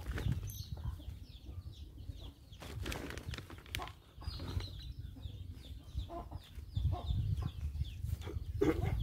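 Hands packing loose soil into a plastic polybag, with scattered rustles and soft knocks, the strongest near the end. Birds chirp and call throughout.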